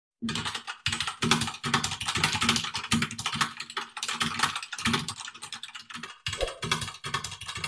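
Typing sound effect: a fast, dense run of keyboard key clicks, with a brief break about six seconds in.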